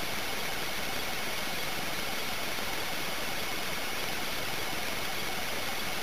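Steady, even hiss with a faint constant high whine: the self-noise of a tiny gum-pack-sized video recorder's built-in microphone.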